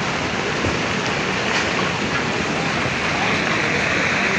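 Landslide rockfall, rocks and debris pouring down a mountainside: a steady, dense rushing rumble that keeps on without a break.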